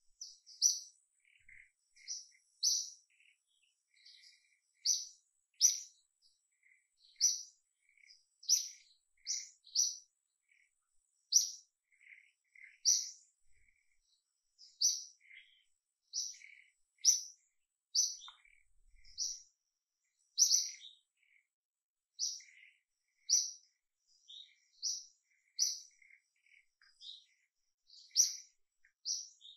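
Birds chirping: short, high notes repeated about once a second, with softer, lower notes in between.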